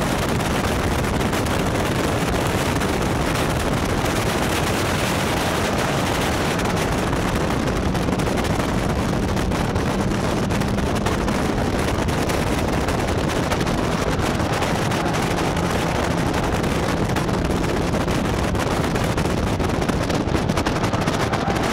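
Caterham Roadsport race car's Ford Sigma four-cylinder engine running hard at racing speed, mostly buried under heavy wind noise on the microphone of the open cockpit.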